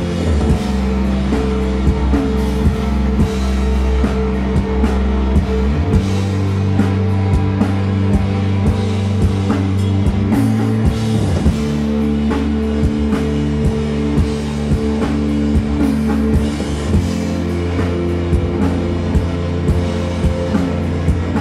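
Rock band playing live: electric guitar and Rickenbacker-style electric bass over a drum kit keeping a steady beat, with held low bass notes.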